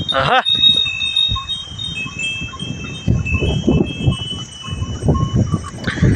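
A herd of Kankrej cattle moving on dry dirt: shuffling and hoof thuds, with bells ringing in thin, lingering high tones. A short bleating animal call comes right at the start.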